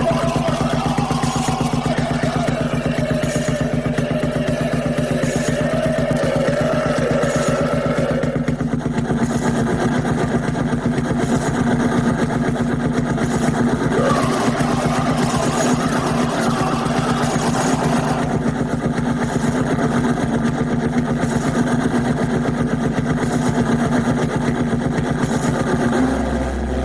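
Harsh electronic noise music: a dense, very fast pulsing buzz over steady low drones, with a wavering mid-pitched tone in the first third, sounding much like a running engine. The low drone shifts near the end.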